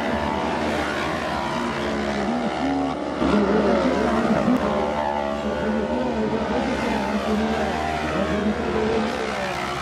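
Several autocross buggies racing past on a dirt track, their engines at high revs, pitch rising and falling as they accelerate and lift off. It gets louder about three seconds in as a buggy passes close.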